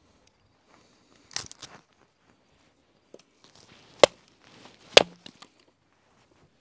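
Hatchet chopping firewood on a wooden chopping block: a quick cluster of lighter knocks early on, then two sharp, loud chops about a second apart.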